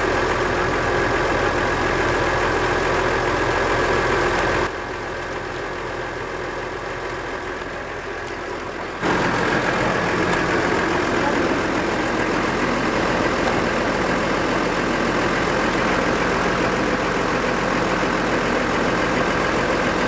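Tractor engine idling steadily. It is quieter for a few seconds in the middle, then as loud as before.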